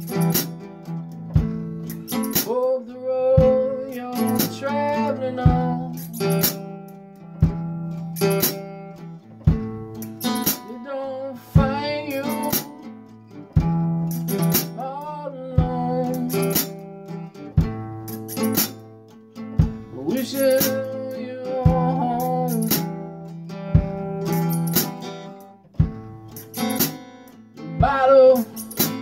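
Acoustic guitar strummed in chords at a steady rhythm, with a man singing over it.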